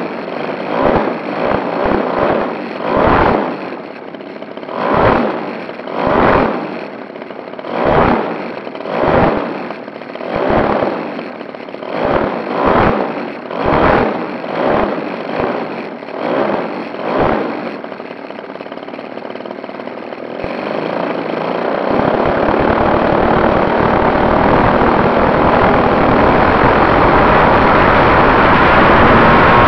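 Engine and propeller of an RC scale Fokker D.VII biplane, heard from a camera on board, blipped in short bursts about once a second while the model taxis. From about 20 seconds in it opens up into a steady, rising full-power run for the takeoff.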